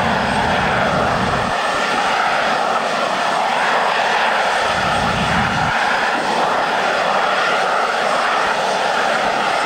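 BAC Lightning F.6's Rolls-Royce Avon turbojet running loudly and steadily on the ground, with no afterburner lit and only one of its two engines going. A deeper rumble swells twice, at the start and about five seconds in.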